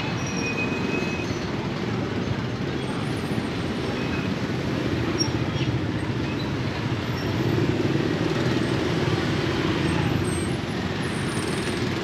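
Steady traffic noise from a busy street, an even rumble with no single event standing out, and a brief high tone right at the start.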